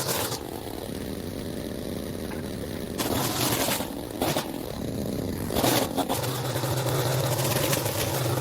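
Small petrol engine of powered lawn equipment running steadily, with a few brief louder rushes of noise partway through.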